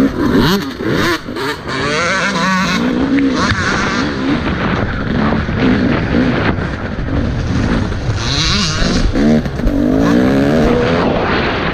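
Motocross dirt bike engine revving hard, its pitch climbing and dropping again and again as the rider accelerates, shifts and backs off.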